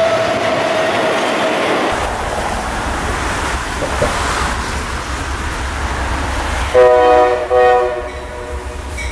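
A Norfolk Southern freight train rolls past, then an approaching Amtrak passenger train rumbles and its locomotive horn sounds two short blasts about seven seconds in.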